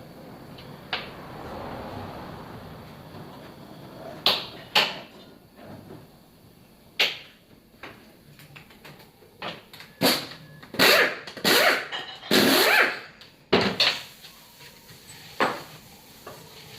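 Hand tools and metal gearbox parts knocking and clattering while a manual gearbox is taken apart. Scattered sharp knocks come thick and fast in the second half, with a few longer bouts of rattling.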